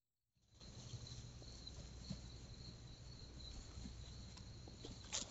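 Faint night ambience through a trail camera's microphone: insects, likely crickets, trilling steadily over a low hum and hiss, starting about half a second in, with a brief click near the end.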